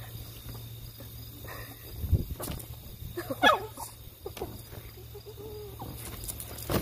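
Boston terrier vocalizing at an inflatable pool toy: one short wavering call about halfway through and a fainter one a second or so later, with a dull thump shortly before.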